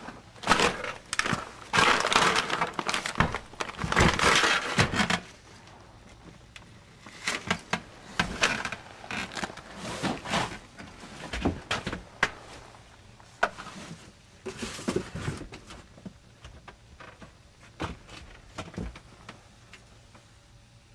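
Cardboard boxes and stored junk being shoved aside and rummaged through: loud crashing and rustling for about the first five seconds, then scattered knocks and rustles.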